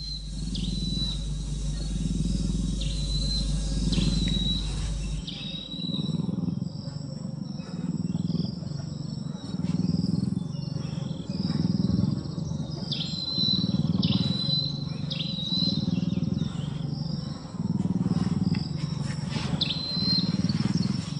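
Serval purring in a slow rhythm, swelling about once every two seconds. Birds chirp in short high notes throughout, and a steady high insect buzz sets in about five seconds in.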